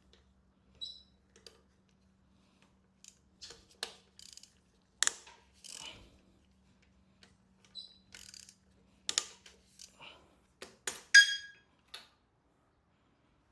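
Irregular metal clicks and knocks from hand tools and engine parts as a connecting rod cap and piston are worked out of the N14 engine. About eleven seconds in comes one sharp, ringing metal clink.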